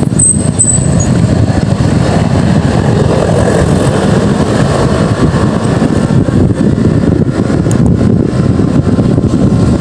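Heavy wind rumble buffeting the microphone while riding through traffic, with road and vehicle noise underneath; a brief high squeal in the first second.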